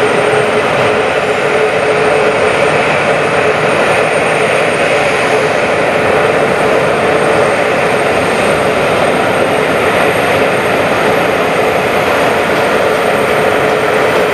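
Jet airliner engines running loud and steady, a continuous roar with a droning tone and a faint high whine over it.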